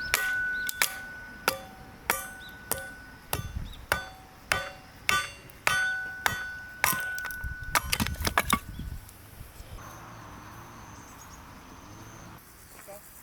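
Repeated sharp metal strikes, each ringing briefly with a clear tone, about one to two a second; they stop about nine seconds in, leaving a faint outdoor hush.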